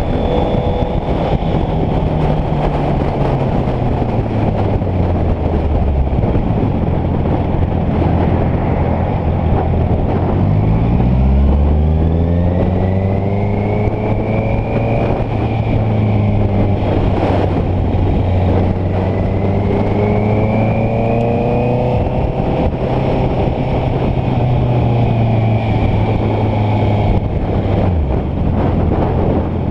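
Honda CBR650F's inline-four engine running under way, with wind rushing over the microphone. The engine note falls over the first several seconds and climbs sharply as it accelerates about ten seconds in. It holds steady, then drops again near the end.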